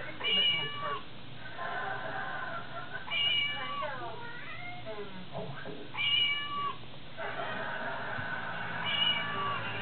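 Cell phone ringtone playing a recorded cat meow, repeating four times about every three seconds, each call the same falling meow under a second long.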